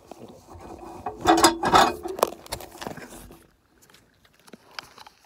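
Scuffling and rubbing of clothing and gloves against the phone's microphone as a resisting goat is held for an oral dose of selenium gel. The loudest scraping comes one to two seconds in, then it dies down.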